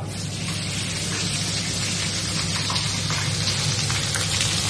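Garlic paste and turmeric sizzling hard in hot oil in a kadai. The hiss starts suddenly as they go in, with scattered crackles and pops throughout.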